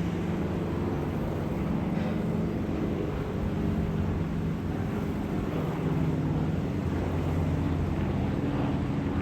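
Aircraft engines droning overhead: a steady low hum whose pitch shifts slowly, from planes circling in a holding pattern.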